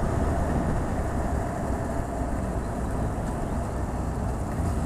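Motorcycle running at a steady road speed, its engine note mixed with a steady rush of wind and road noise.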